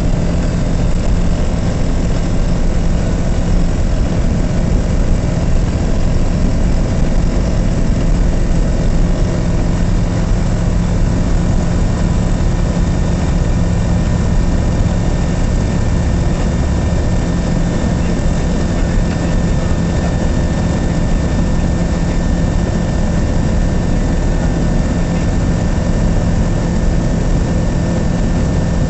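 Land Africa ultralight's engine and propeller running steadily at takeoff power, heard from the open cockpit as a constant loud drone with a rushing noise, through the takeoff roll on a grass strip and into the climb-out.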